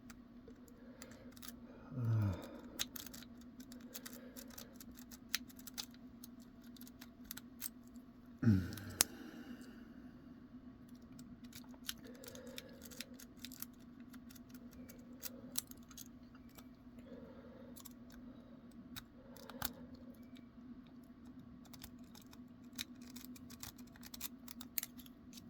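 Lock pick raking inside a three-row dimple-core pin lock: many light, irregular metal clicks and scrapes as the pins are worked. Two short voiced sounds from the picker, about 2 s and 8.5 s in, stand out over a faint steady hum.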